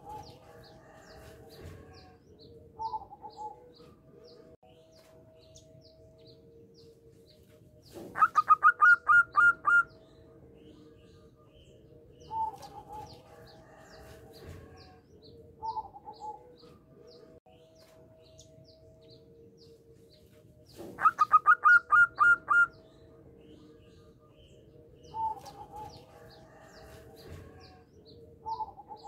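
Zebra dove (perkutut) singing: twice a loud run of about ten quick staccato cooing notes lasting about two seconds, with shorter, softer coos in between.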